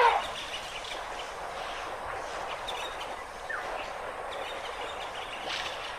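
Steady outdoor ambience with a hiss of wind or field noise and a few faint bird chirps. A louder pitched call cuts off right at the start.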